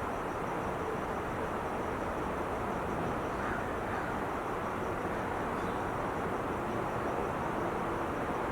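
Steady rush of distant freeway traffic, with a faint, rapid high chirping of insects over it.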